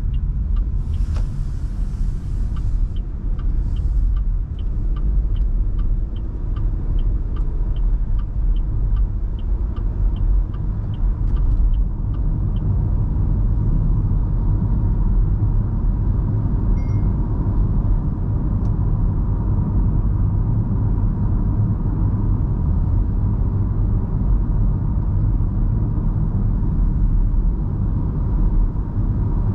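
Inside the cabin of an MG Hector Plus SUV on the move: a steady low rumble of road and engine noise. Over it, for about the first twelve seconds, a regular ticking, two or three ticks a second, that then stops, typical of a turn indicator.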